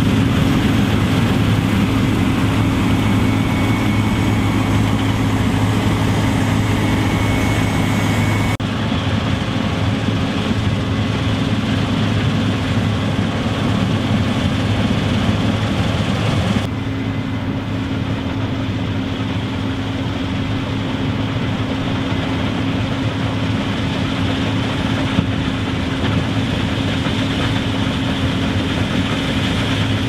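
Case IH 8120 Axial-Flow combine harvester running steadily while cutting rye: a steady diesel engine drone under the hum of the threshing machinery. The sound changes abruptly twice, about 8 and 17 seconds in.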